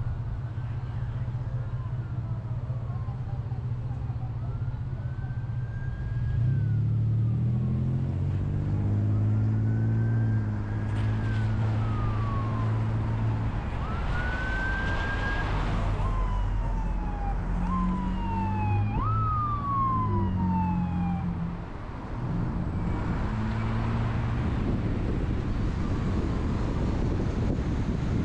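An emergency vehicle's siren wailing in slow rising and falling sweeps, then switching to a few quicker sweeps before it fades out a little past two-thirds of the way through. Under it runs the steady low rumble of road and engine noise from the car being driven.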